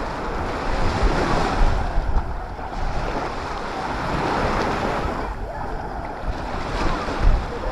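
Sea waves breaking and washing up the shore in surges that swell and ebb, with wind rumbling on the microphone.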